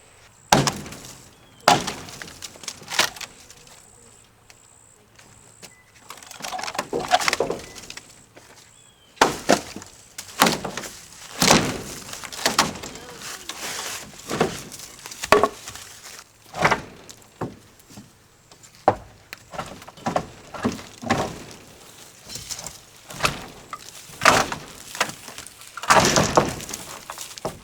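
Old wooden deck boards being pried up and knocked loose: a string of irregular sharp knocks and cracking clatters, one every second or so.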